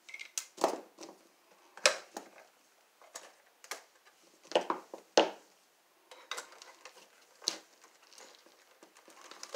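Hand tools clinking and clattering as they are rummaged through in a tool bag: an irregular string of sharp metallic clicks and knocks.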